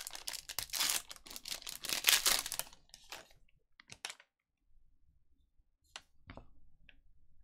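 Foil wrapper of a trading-card pack torn open and crinkling for the first few seconds, then a few soft clicks as the thick cards are slid out and handled.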